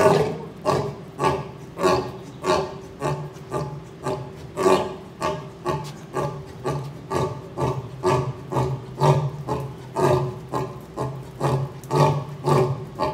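Male lion roaring: a long run of short, deep grunting calls, evenly spaced at about two a second, the first the loudest.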